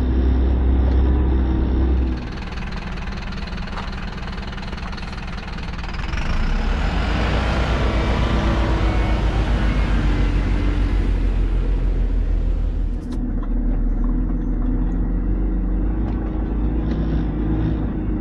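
Expedition truck driving on a gravel mountain track, its engine running in a steady low drone. Partway through, a louder rushing noise of tyres on gravel and wind rises over it, then cuts off suddenly.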